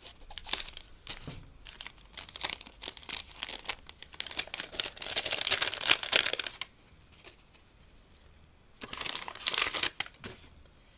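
Hands unwrapping a small gift package: packaging crinkling and tearing in bursts, loudest a little past the middle, then a short pause and a second shorter burst of crinkling.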